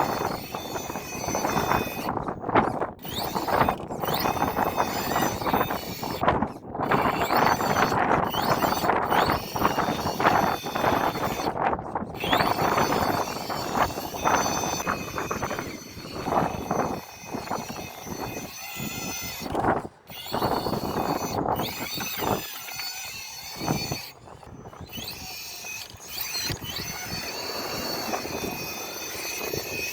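RC rock crawler's 2500kv motor and drivetrain whining under throttle, rising and falling in pitch with several brief stops as it works over rocks.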